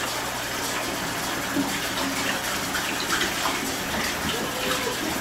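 Kitchen sink faucet running, a steady stream of water pouring into the sink.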